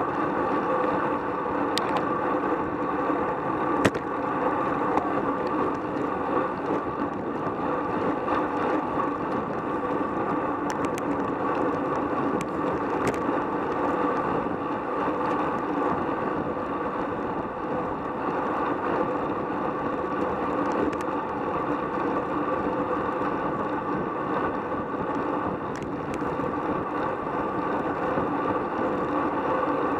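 Road bicycle ridden at about 18 to 25 mph in a pack, heard from a camera mounted on the bike: a steady rush of wind and tyre noise on asphalt, with a few sharp clicks scattered through it.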